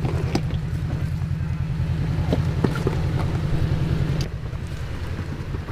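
Toyota 4Runner's engine running at low speed, a steady low drone, with a few light knocks and clicks. The drone eases off a little about four seconds in.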